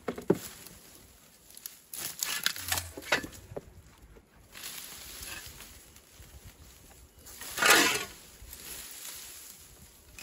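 Hand hoe chopping and scraping at soil and cut leafy brush, with leaves rustling and crackling: a sharp strike just after the start, scattered scrapes a couple of seconds in, and a louder rustling scrape near the end.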